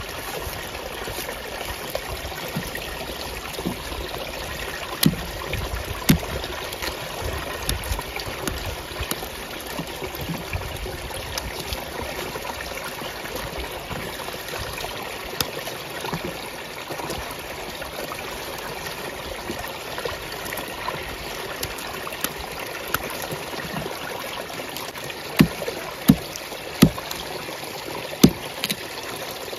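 Water running steadily from a tap or hose, with scattered sharp knocks and snaps as cassava roots are peeled with a knife, the loudest coming in a quick cluster near the end.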